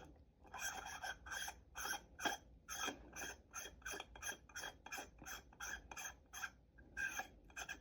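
Hands working the small pieces of a wide-angle lens adapter onto a camera, making a light, rhythmic scraping and rubbing of hard parts at about three strokes a second.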